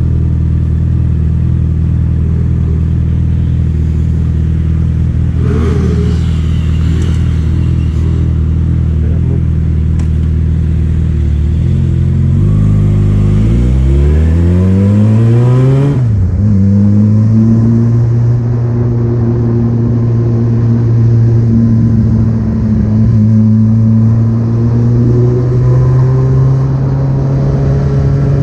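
Vehicle engine running steadily, then revving up with a rising pitch from about twelve seconds in, dropping suddenly at a gear change around sixteen seconds, then pulling steadily again with a slowly rising pitch.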